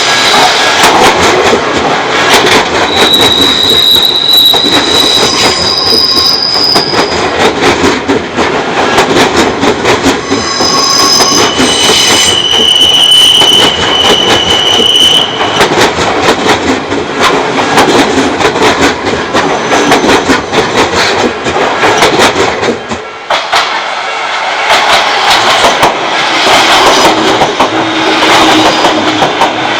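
Odakyu Odawara Line train running over a level crossing, its wheels clattering on the rails. High wheel squeal comes and goes in several steady tones through the first half. The sound dips briefly about three quarters of the way in, then the rolling noise returns.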